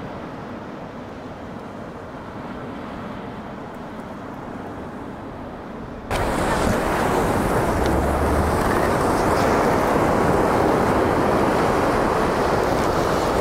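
Steady wind and breaking surf on a beach. About six seconds in, the sound jumps abruptly louder and brighter as wind buffets the microphone.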